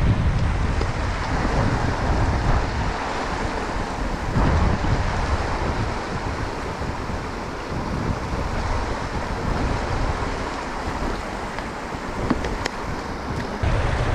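Wind buffeting the microphone in uneven gusts of low rumble, over a steady rush of flowing stream water.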